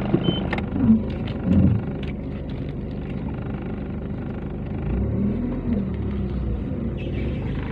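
Steady engine and road noise heard from inside a moving vehicle, with a few brief knocks and rattles in the first couple of seconds.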